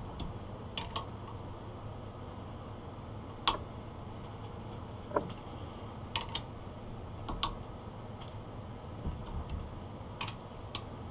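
Scattered metallic clicks and taps of a steel hex key working socket-head cap screws in steel parts held in a vise, irregular and a second or so apart, with the sharpest click about a third of the way through.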